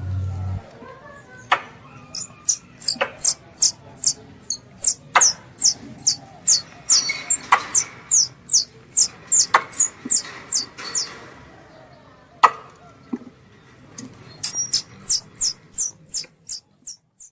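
Squirrel call used as a lure: runs of sharp, high, falling chirps, about three a second, broken by a pause of a few seconds before a second run near the end. Occasional sharp clicks sound between the chirps.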